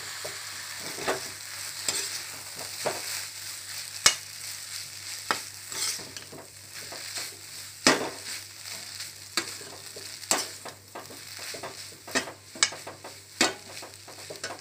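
Stir-fried noodles sizzling in a hot black kadai while a slotted metal spatula tosses and stirs them. The spatula scrapes and clanks against the pan at irregular intervals, with two louder knocks about 4 and 8 seconds in.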